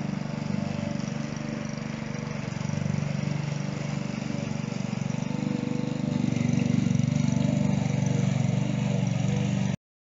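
Walk-behind rotary lawn mower running steadily as it cuts grass, growing louder about six seconds in and stopping abruptly near the end.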